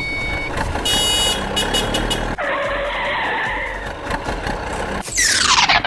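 Cartoon vehicle sound effects: an engine running with a skid-like hiss, a short chiming tone about a second in, and a loud, fast falling sweep about five seconds in.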